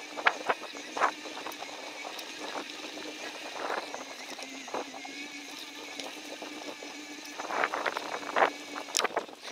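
Bicycle riding along a woodland trail: a steady rolling hum of the tyres, with scattered clicks and rattles as the bike goes over bumps, thicker in the first second and again near the end.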